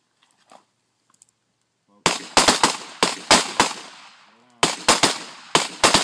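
Handguns fired at a firing line by several shooters at once: rapid, overlapping shots in two strings, the first starting about two seconds in and the second after a brief pause, each shot ringing out afterwards.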